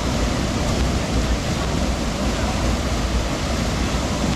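Steady rushing of fast river water pouring over falls.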